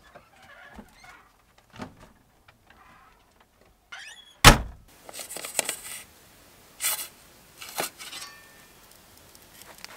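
A pizza being loaded on a peel into a gas pizza oven: light knocks, one loud thunk about halfway through, then short bursts of scraping.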